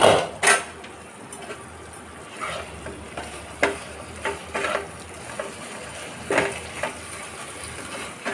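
A spatula stirring and scraping taro stolons frying in oil and mustard paste in a non-stick pan, in separate strokes over a faint sizzle. Two sharp clacks right at the start.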